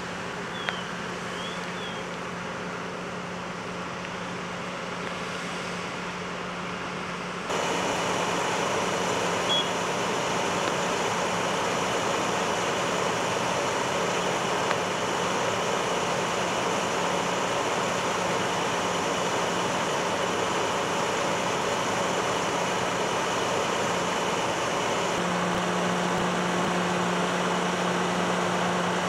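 Steady low hum of idling fire truck engines, growing louder about a quarter of the way in.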